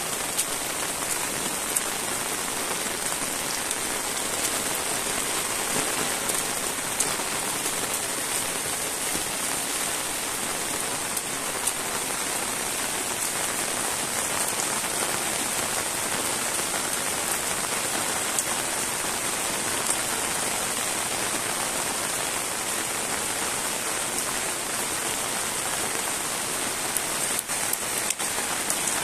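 Steady rain falling on wet pavement and rooftops: an even, continuous hiss.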